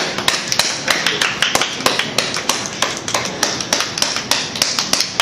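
A small group of people clapping their hands, a quick, uneven patter of claps.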